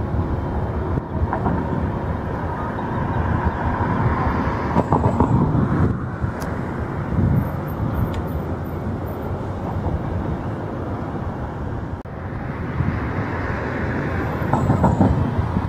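Airbus A320 airliner's jet engines running as it rolls along the runway after arriving, heard across the airfield as a steady low rumble with a faint whine.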